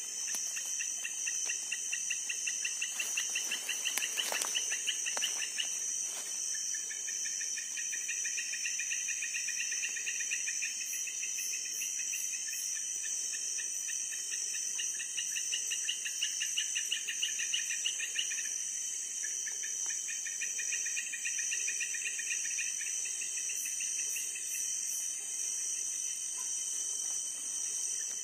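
Night chorus of crickets and other insects: a steady high-pitched ringing, with a lower trill of rapid pulses coming in three long runs that start and stop. A few brief clicks about four seconds in.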